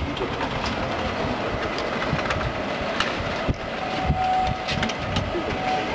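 Continuous peanut fryer running: a steady mechanical rumble from its drive and stainless mesh conveyor belt, with scattered light clicks and clinks.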